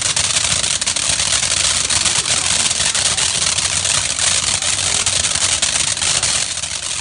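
Ground fountain firework burning, a steady loud hiss of spraying sparks thick with fine crackling.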